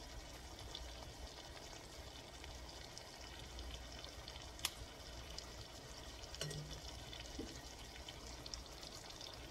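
Pork chops searing in a hot cast iron skillet: a faint, steady sizzle with light crackling and one sharper pop about halfway through, as the chops brown to a crust.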